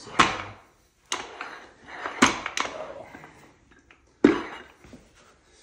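Rep x Pépin adjustable dumbbell handle and plates clacking and knocking as the handle is handled in and out of its cradle: several sharp hard clacks a second or so apart, the loudest about four seconds in.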